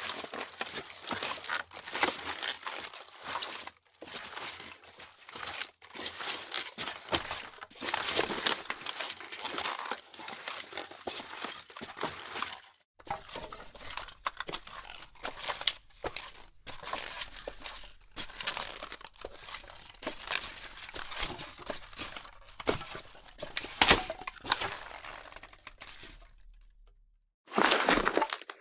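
Footsteps crunching on a loose, crunchy surface, steps coming in quick succession, with a short break about halfway through and another near the end.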